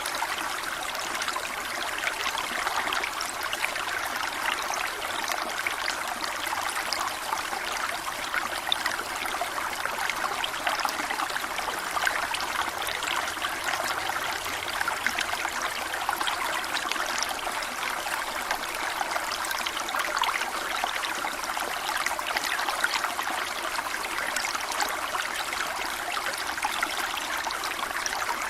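Running water of a waterfall: a steady splashing rush with fine splattering detail and little deep rumble.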